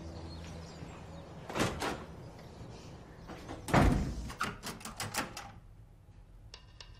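Footsteps, then a wooden door being handled: a heavy thump about four seconds in, followed by a quick run of latch and handle clicks.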